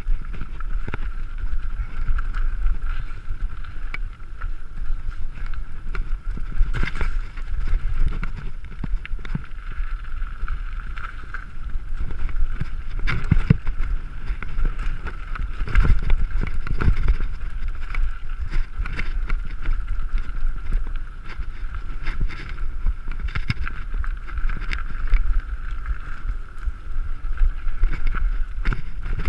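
Mountain bike ridden over a rough trail: continuous low wind rumble on the microphone, with frequent knocks and rattles from the bike jolting over bumps and a steady high-pitched buzz running underneath.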